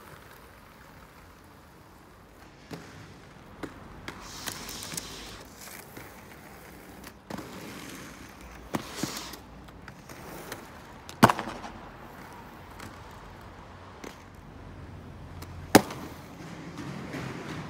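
Inline skates on wet pavement: scattered sharp clacks and knocks, the loudest about eleven and sixteen seconds in, with a couple of brief hissing rolls over a low outdoor hiss.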